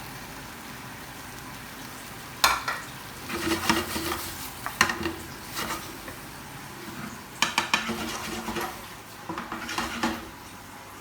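A metal cooking utensil stirring and scraping in a pan, tossing sauced chicken wings with spring onion. It makes clusters of clatters and scrapes that start about two and a half seconds in, over a faint steady sizzle.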